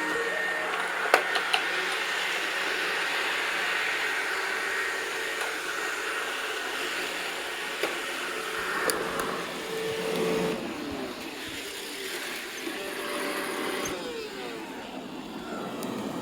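Robot vacuum cleaner running with a steady whir, with a few sharp clicks and knocks along the way and some brief falling whines in its pitch after about ten seconds.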